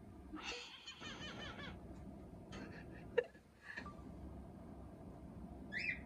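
Cockatiel imitating human laughter: a warbling 'ahaha' call lasting about a second and a half near the start, then a few short chirps, a sharp click about three seconds in, and a rising chirp near the end.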